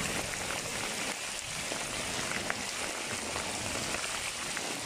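Steady rain falling: an even hiss, with a few sharper drop hits.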